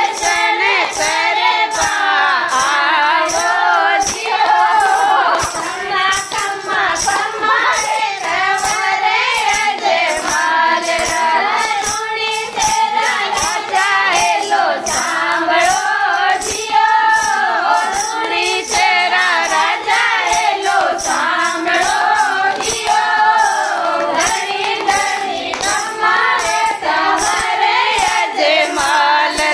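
A group of women singing a Marwari devotional bhajan together, keeping time with steady rhythmic hand-clapping.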